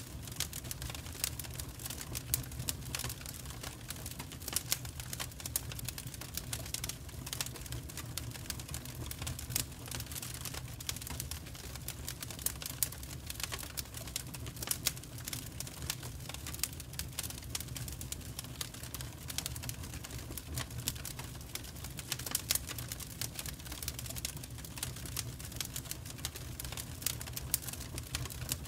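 Wood fire in an open fireplace grate crackling, with irregular sharp pops and snaps from the burning logs over a steady low rumble.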